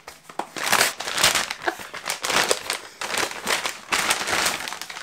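Parcel packaging being handled and pulled open to get a book out: a dense, irregular run of rustling and crackling throughout.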